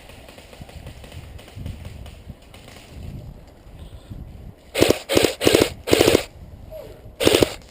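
Airsoft rifle firing about five short bursts of rapid shots a little past halfway through, after a few seconds of low rustling movement.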